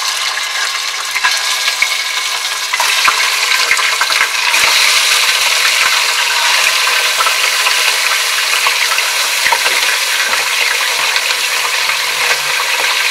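Raw chicken pieces sizzling and spattering in hot oil in a pressure cooker as they go in, with scattered small pops. The sizzle grows louder about three seconds in and again a second or so later as more pieces are added.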